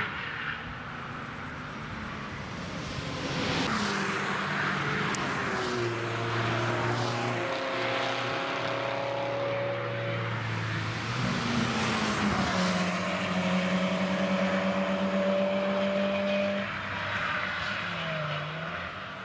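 Several cars driving through a race-track bend one after another at speed. Their engine notes rise, fall and change pitch as each accelerates, shifts and passes, over tyre and road noise.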